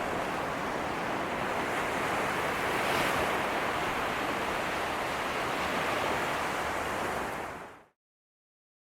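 Sea of Japan surf breaking on a beach, a steady wash of waves with wind on the microphone, swelling slightly about three seconds in. It fades out to silence near the end.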